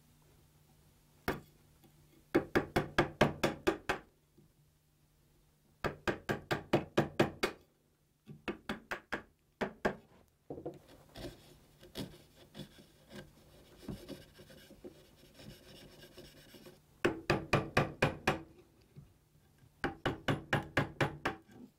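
Wooden mallet tapping a chisel into a pine leg to chop out the ridges between drilled holes and square up a mortise. The taps come in quick bursts of about six a second, several times over. Between bursts there is the quieter scrape of the chisel paring the wood by hand.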